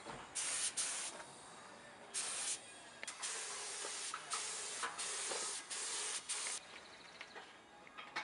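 Compressed-air paint spray gun spraying in a run of short on-off bursts, each a loud hiss lasting from half a second to about a second, as the trigger is pulled and released.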